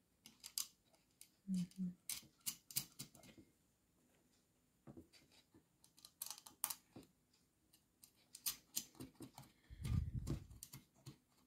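Fingers handling small plastic and metal parts in the opened base of an electric kettle, turning the fastener on the thermostat contact: faint, irregular clicks and ticks, with a soft low bump near the end.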